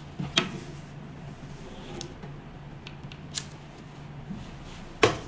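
Sharp plastic-and-metal clicks and knocks from handling the small handle of a roller slimming machine while its roller tip is detached, over a low steady hum. There are a few separate clicks, the loudest near the end.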